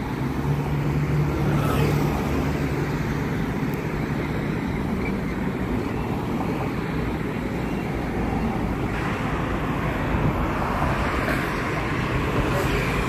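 Steady road traffic noise: vehicles passing on the bridge, a continuous low rumble, with one engine's hum standing out from about half a second to two seconds in.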